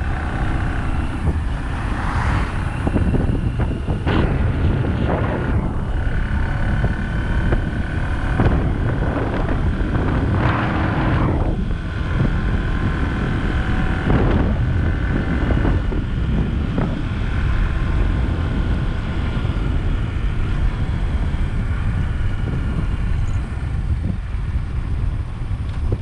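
Motorcycle engine running steadily while riding, under heavy wind rumble on the microphone that swells briefly a few times.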